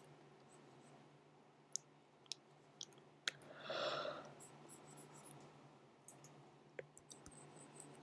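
Faint scattered clicks and taps of a pen stylus on a drawing tablet, about half a dozen, with a short soft rush of noise about four seconds in, over a low steady hum.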